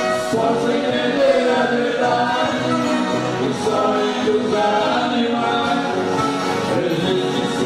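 Viola caipira orchestra playing a sertanejo song live: many ten-string violas strumming while a group of voices sings together.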